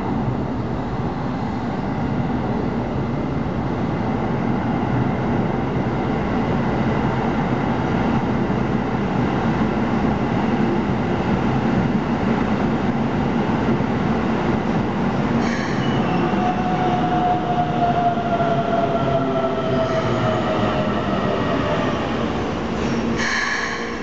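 Keikyu 600 series electric train running into the station, wheels and motors rumbling steadily as its cars pass. In the second half a whine falls in pitch as it slows, with two short squeals, the second near the end.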